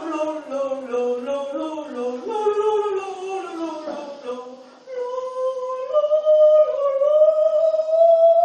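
A single wordless melody in held notes, stepping down and back up, then settling on a long sustained note that starts to slide upward near the end.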